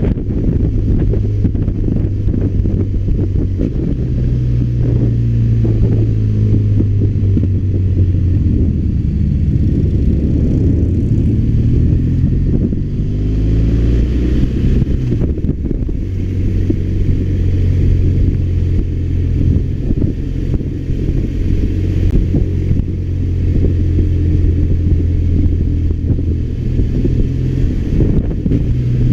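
BMW R1200RT's flat-twin boxer engine running steadily as the motorcycle rides downhill, with the revs sliding up and down for a few seconds around the middle before settling again.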